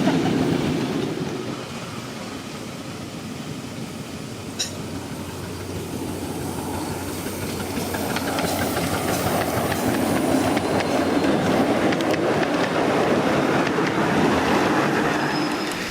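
Miniature railway train running on its track, wheels rumbling and clicking over the rail joints, louder in the second half, with one sharp click about four and a half seconds in.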